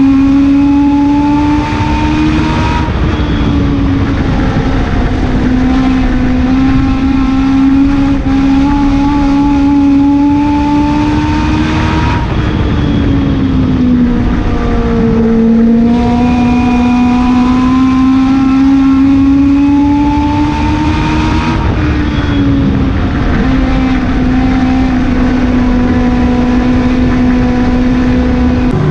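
Legend race car's Yamaha four-cylinder motorcycle engine running hard, heard from inside the cockpit while lapping a short oval. The pitch climbs slowly along each straight and dips three times, about every nine seconds, as the driver lifts for the corners. It changes abruptly at the very end.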